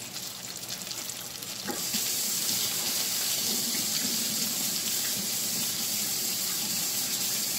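Kitchen faucet running in a steady stream, turned on about two seconds in, over the faint sizzle of frying pans.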